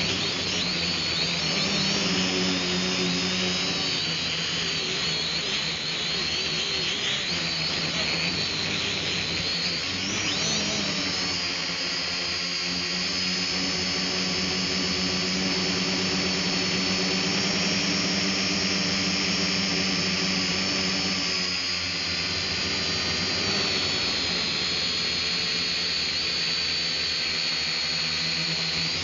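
Small cheap quadcopter drone's electric motors and propellers whining steadily in flight, heard through the drone's own onboard camera microphone. The high whine wavers in pitch as the drone moves.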